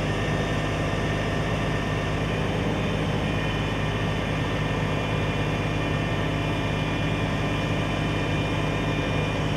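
A large engine running steadily at an even speed, with a constant low hum and a few steady higher tones.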